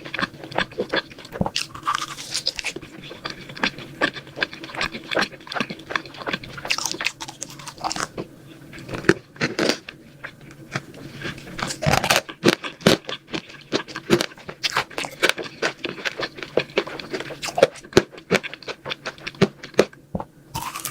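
Close-miked mukbang eating: a person biting and chewing novelty sweets, making many sharp, irregular crunches.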